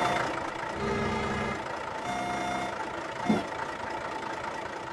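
Cartoon machine sound effects for a small tracked pipe-laying crane at work: an engine running in spurts while it moves, with a held beeping tone about two seconds in.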